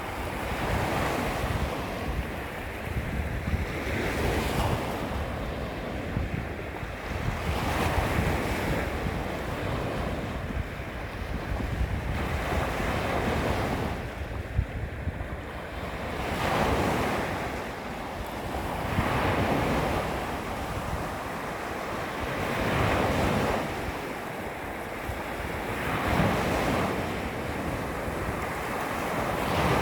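Small sea waves lapping against a beach shoreline, each wash swelling and fading every two to three seconds, over a steady low rumble of wind on the microphone.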